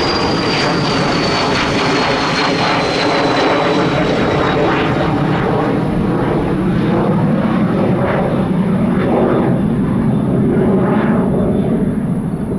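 Twin turbofan engines of a Cessna Citation Ultra business jet running at climb power as it passes overhead and moves away. A thin high whine slides slowly down in pitch over the first few seconds.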